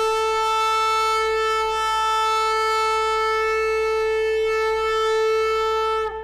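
Shofar blown in one long, steady note that stops about six seconds in.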